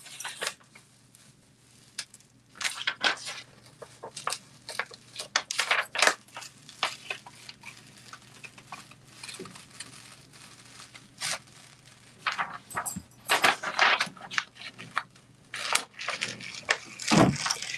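Plastic DTF transfer film being slowly peeled off a heat-pressed T-shirt print: irregular crinkling and crackling of the sheet as it lifts away.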